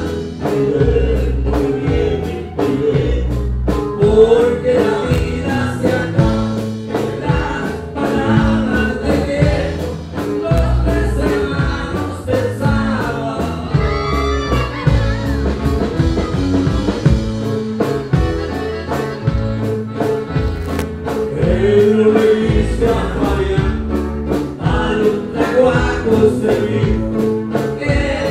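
Live norteño band: a man singing over a strummed twelve-string bajo sexto, accordion and drums, with a steady beat.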